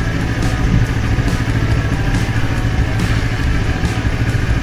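CFMoto 650MT's parallel-twin engine idling steadily.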